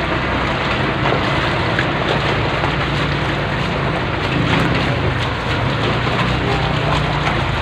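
Floodwater sloshing and splashing around the legs of someone wading through it, over a steady low hum.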